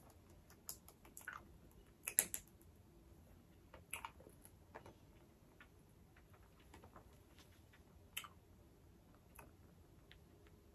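Faint, scattered mouth clicks from sucking a hard candy ball, with the candy now and then clacking against the teeth; about a dozen irregular small clicks, the sharpest about two, four and eight seconds in.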